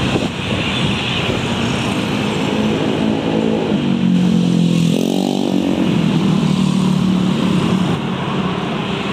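Motorcycle engine running as it rides in traffic, its pitch rising as it speeds up about five seconds in, over steady road and wind noise.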